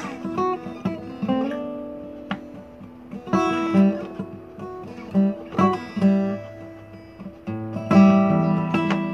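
Solo acoustic guitar: picked notes and strummed chords ringing out in short phrases, with a few bent notes and quieter gaps between the phrases.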